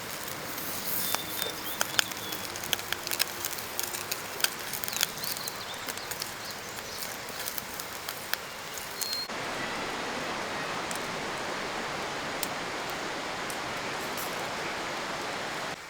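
A fire crackling in a small fire pit, with many sharp pops and clicks over a steady rushing hiss. About nine seconds in the sound changes abruptly to a steady, even rushing noise without pops.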